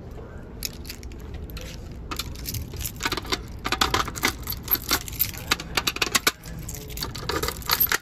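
A ring of metal keys jingling and clicking against a fire alarm pull station as a key is fitted into its reset lock. It starts with scattered clinks and becomes a dense, rapid jangle from about two seconds in.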